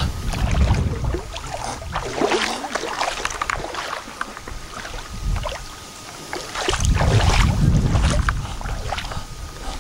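Shallow lake water splashing and sloshing as a young Alaskan Malamute and a person wade through it. Wind rumbles on the microphone for about the first second and again from about seven seconds in.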